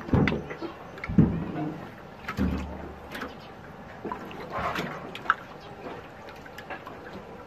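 Fish thrashing in shallow muddy water: irregular splashes and sloshes, fewer and quieter in the last couple of seconds, with a brief low rumble a little before the middle.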